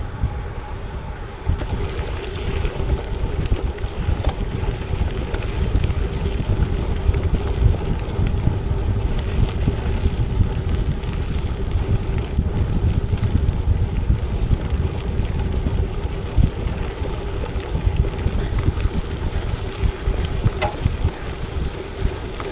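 Wind buffeting the microphone of a gravel bike's action camera while riding at speed, a steady low rumble with a faint, even hum from the bike rolling underneath.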